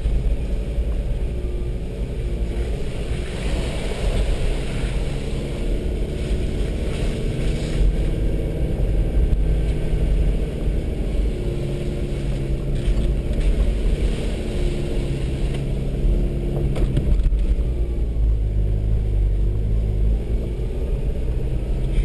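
Vehicle engine running, heard from inside the cab while driving slowly over a rutted, muddy dirt road. The engine note rises and falls with the throttle over a steady low rumble, with a few knocks and rattles from the bumps.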